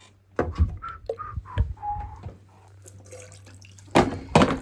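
Water dripping from a drained-down gas boiler: several short plinking drops in the first couple of seconds, then two loud knocks near the end.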